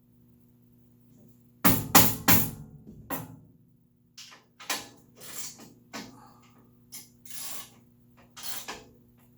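Knocking and clanking of tools against a table saw's steel rail during assembly: three loud knocks about two seconds in, then scattered lighter clicks and short scrapes as the rail is adjusted and its bolts worked.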